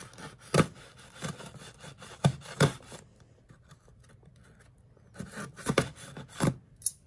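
Scissors cutting along the edge of a cardboard shipping box: a run of sharp snips and scraping cuts, a pause of about two seconds midway, then another run of snips.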